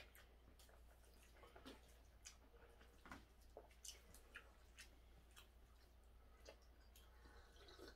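Near silence, broken by faint, scattered clicks of wooden chopsticks against a plate and quiet chewing.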